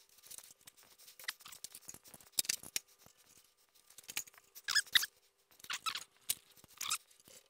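Quiet scattered clicks, taps and a few short squeaks of metal rail hardware on a longarm quilting frame being handled as a rail is raised and set level.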